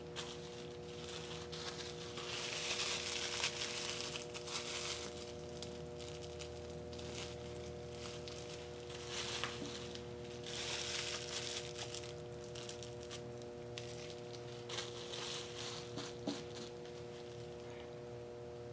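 Bubble wrap crinkling and rustling as it is handled and pressed, in three spells, over a faint steady room hum.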